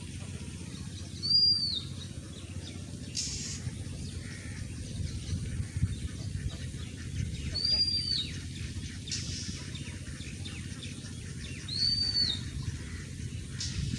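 A bird calling three times, each a short, high whistle that rises and falls in an arch, over a steady low background rumble. A few brief hisses come in between the calls.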